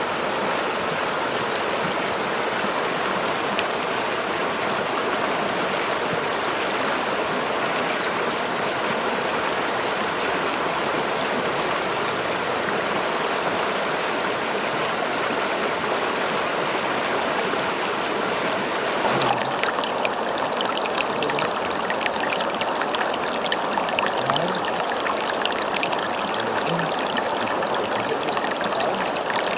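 Steady rushing of running water, like a stream. About two-thirds of the way through it turns crisper, with more fine splashing and trickling.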